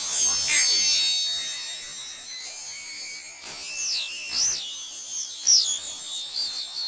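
Pitched-up cartoon film soundtrack: high tones that swoop up and down over and over, with a few brief knocks.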